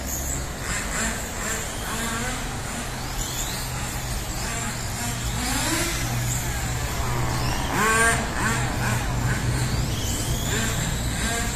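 Electric motors of 1/12-scale RC pan cars whining as they race around the track, the pitch rising and falling with each acceleration and pass, loudest about eight seconds in.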